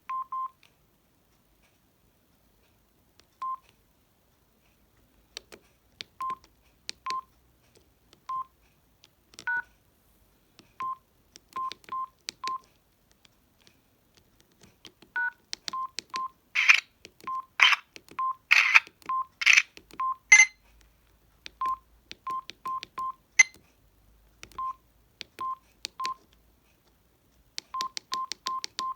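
Samsung SGH-D600 mobile phone beeping as its keys are pressed to move through the menus: a short high beep for each press, singly or in quick runs, each with a faint key click. A two-note falling tone sounds twice, and a cluster of louder, noisier clicks comes a little past the middle.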